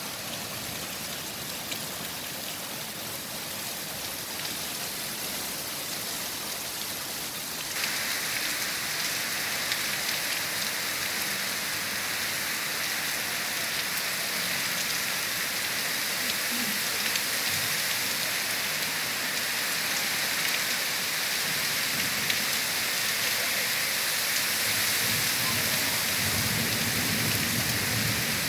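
Heavy monsoon rain pouring steadily, an even hiss that turns louder and brighter about eight seconds in. Some low rumbling comes through near the end.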